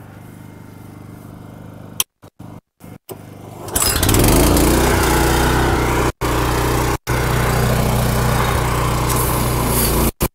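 Small gas engine of a belt-driven pressure washer starting about four seconds in. It quickly revs up and then settles into a steady loud run. The audio drops out for a moment several times.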